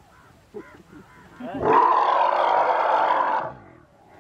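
A baby Asian elephant calf gives one loud, rough trumpeting call lasting about two seconds, starting about a second and a half in, as it resists being led on a strap.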